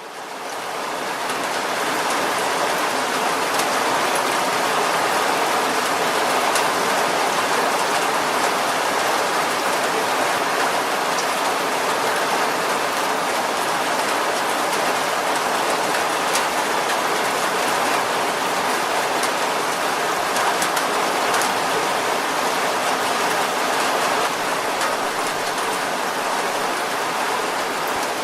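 Steady rain drumming on a car's roof and body, heard from inside the car, with scattered individual drop ticks. It fades in over the first second or two, then holds even.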